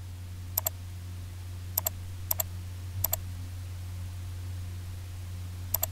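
Computer mouse buttons clicking five times, each click a quick press-and-release pair, over a steady low electrical hum.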